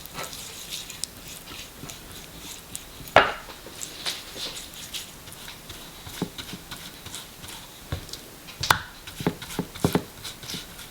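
Scattered knocks and clicks of kitchen utensils and dishes being handled during food prep, the loudest about three seconds in and a quick run of them near the end.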